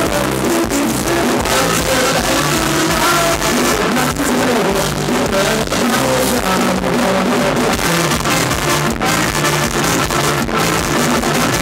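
Live Thai ramwong dance band playing loud, continuous music with a drum kit and cymbals.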